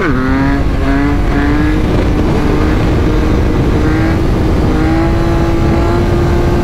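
Motorcycle engine under power at speed. Its pitch drops sharply at an upshift right at the start, then climbs slowly and steadily, with heavy wind rush on the microphone.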